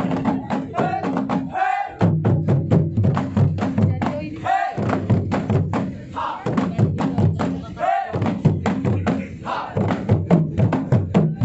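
Rampak gendang: an ensemble of Sundanese kendang drums played together in a fast, dense rhythm. About every three seconds the drumming breaks off briefly for a rising group shout, then comes straight back in.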